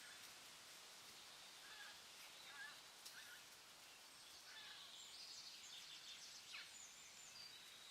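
Faint forest ambience: birds calling over a steady hiss, a few short lower calls in the first half, then a run of high chirps and trills from about the middle to near the end.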